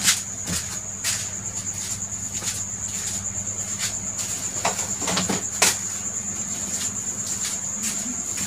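A steady high-pitched insect trill, with a low steady hum beneath it and a few faint clicks, the loudest about five and a half seconds in.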